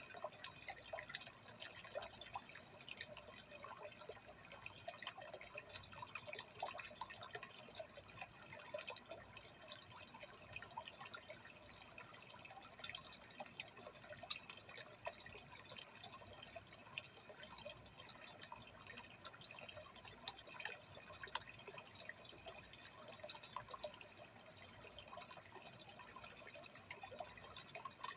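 Faint, steady trickle of aquarium water, dense with small irregular drips and plops.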